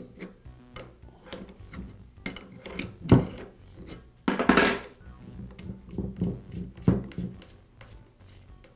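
Steel wrenches clinking and scraping against a DeWalt router's collet nut and motor shaft as the nut is loosened and unscrewed: many small clicks, a sharp knock about three seconds in, and a louder half-second scraping rattle about a second and a half later.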